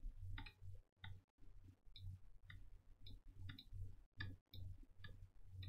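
Faint computer mouse clicks, about two a second, over a low hum.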